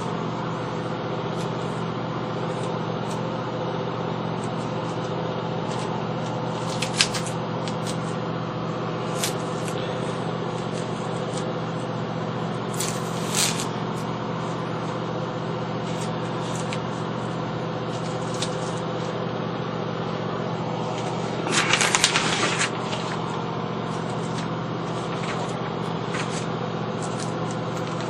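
Intermittent scraping and rubbing of a hand tool on the washing machine's rusty metal top, with a short flurry of louder scratching strokes near the end, over a steady low hum.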